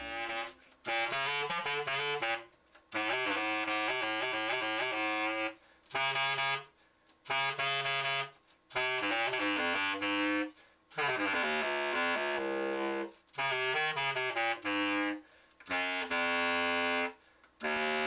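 Selmer bass clarinet, freshly overhauled and repadded, played as a test: phrases of quick runs and held notes, broken by short pauses.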